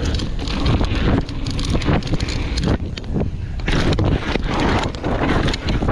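Mountain bike descending a rocky dirt trail: wind buffeting the camera microphone, tyres crunching over gravel, and the bike clattering over bumps.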